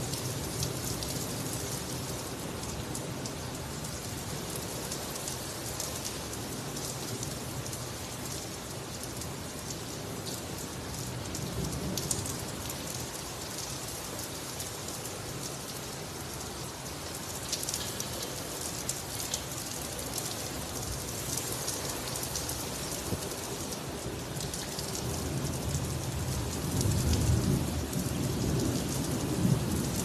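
Heavy rain pouring onto a flat, wet concrete rooftop, a steady dense hiss. A low rumble of thunder swells in over the last few seconds.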